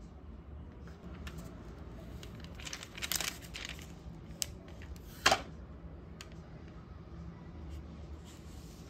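A stiff plastic screen protector film being handled and pressed down by hand on an iPad screen: crinkling for about a second, about three seconds in, then a short click and a sharp snap about five seconds in, the loudest sound, with a few light ticks after.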